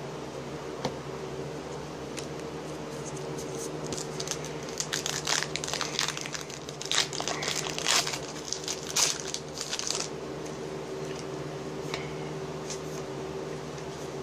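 A trading-card pack wrapper being torn open and crinkled by hand, a run of crackling from about four to ten seconds in, over a steady low hum.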